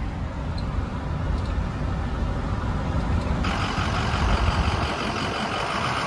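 Truck cruising at highway speed, heard from inside the cab: a steady low rumble of engine and road noise. About three and a half seconds in, a louder hiss of road and wind noise joins it.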